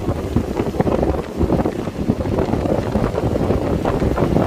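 Strong wind buffeting the microphone in a loud, gusty, low rumble.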